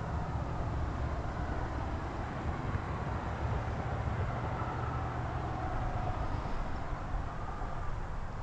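Steady traffic noise from the highway bridge: a continuous low rumble with tyre hiss that swells slightly midway.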